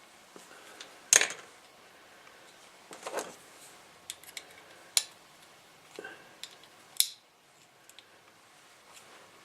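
Sharp metallic clicks and clacks with a scrape, from handling a radio's circuit board and the steel tabs of its metal chassis. The sharpest clicks come about a second in and again near five and seven seconds.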